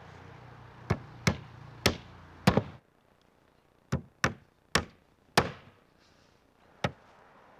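Hammer driving nails into plywood roof sheathing while a patch is nailed off: a run of sharp separate blows, about two a second, with a brief pause near the middle.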